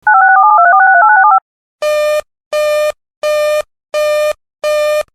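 Broadcast alert signalling tones. A fast run of touch-tone-like tone pairs steps in pitch for about a second and a half. After a short gap come five short, buzzy electronic beeps, evenly spaced about three every two seconds, marking the break between two emergency bulletins.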